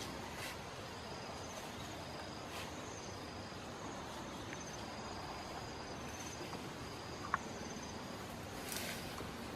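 Insects chirping in short, repeated high-pitched trills over a steady outdoor hiss, with one sharp click about seven seconds in and a brief rustle near the end.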